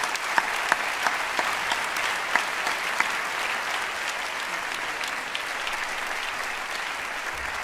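Audience applause after a speech, steady throughout, with a few sharp, close claps standing out in the first few seconds.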